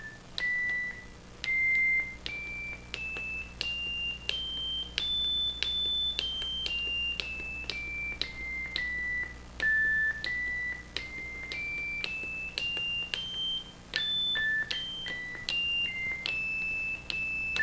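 Arduino synthesizer running a Mozzi ADSR envelope sketch, playing single high-pitched notes one at a time from a push-button keyboard. The notes step up a scale and back down, then climb again, each lasting about half a second and starting with a click.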